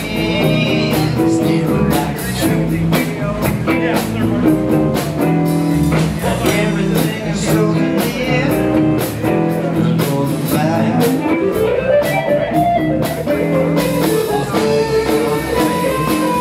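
Live electric blues band playing an instrumental passage: electric guitar and electric bass over a drum kit. A long upward pitch glide runs from about ten seconds in.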